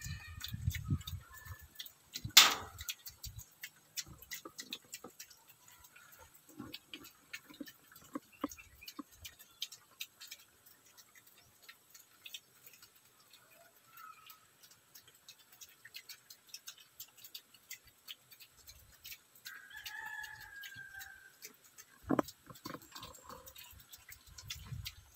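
Piglets eating loose dry feed off a concrete floor, chewing and smacking with a rapid run of small clicks. A loud knock comes about two seconds in and another near the end, and a brief high animal call sounds about twenty seconds in.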